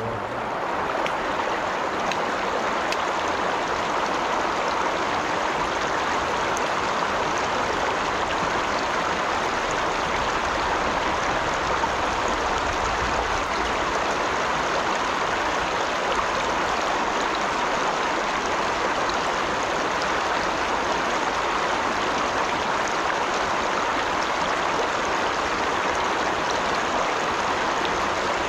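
Shallow river running over stones in a riffle: a steady rushing of water.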